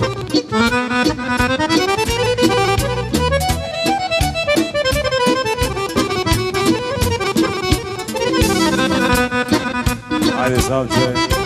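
Live band playing an instrumental passage of Serbian folk music: a fast, ornamented accordion melody leads over a steady drum-kit beat, with electric guitar and keyboard.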